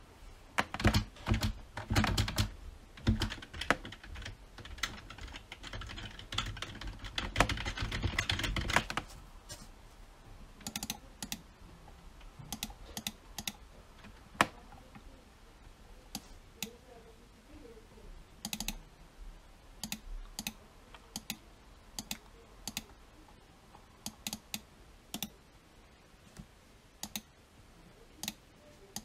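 Typing on a computer keyboard: rapid, dense keystrokes for the first nine seconds or so, then slower, scattered key presses.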